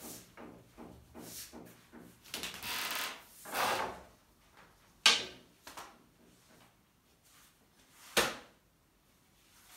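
Long thin wooden rolling pin (oklava) working a thin sheet of yufka dough on a glass tabletop: a quick run of light rolling strokes, then two longer swishing passes. Two sharp knocks follow, about five seconds in and just after eight seconds.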